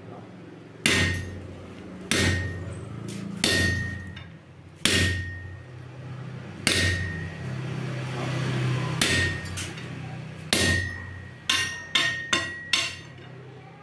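A 3 kW electric power hammer striking a red-hot steel bar on its die, each blow a sharp metallic clang with a short ring. Seven blows come a second or two apart, then a quick run of five near the end, over a steady low hum.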